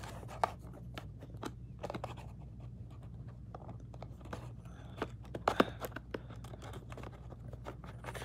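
Fingers and fingernails scratching and picking at a cardboard model-aircraft box while prying its end flap open: scattered light scrapes and clicks, with a sharper click just after the start and a few more about five and a half seconds in.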